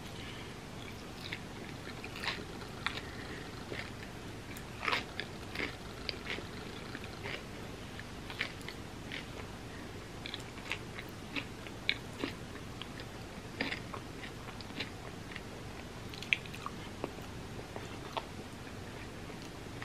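A person biting and chewing a chocolate-coated peanut-butter puffed-rice bar with peanuts: irregular small crisp crunches and wet mouth clicks, a few louder crunches scattered through.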